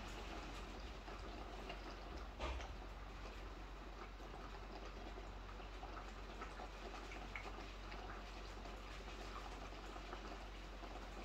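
Heavy typhoon rain heard from inside a building: a steady hiss of rainfall with scattered small drips and taps. There is one louder knock about two and a half seconds in.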